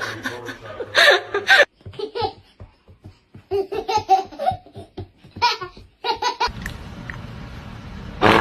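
Laughter in several short bursts with pauses between them, then a steady low hum from about six and a half seconds in.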